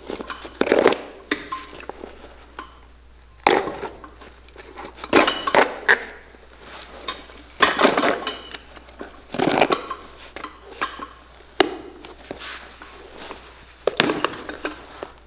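Old chain-stitch thread being ripped out of a boot's welt, pulled loose loop by loop in a series of sharp tearing pulls about every one to two seconds, with quieter handling of the boot between them.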